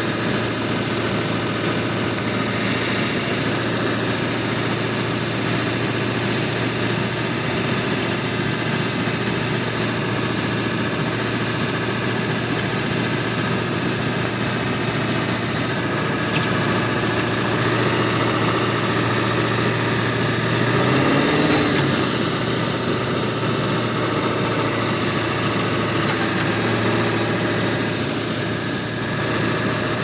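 4x4 truck engine running steadily, heard from inside the cab while it drives through deep snow, with a steady low hum and hiss. About two-thirds of the way through it swells briefly, rising and falling in pitch.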